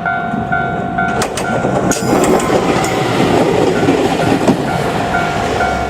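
A train passes over a level crossing, its wheels clicking over the rail joints. Through it the crossing's warning bell rings steadily, about two dings a second.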